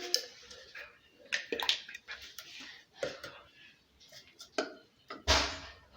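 Scattered clicks and knocks of kitchen items being handled, with a brief loud rush of noise about five seconds in.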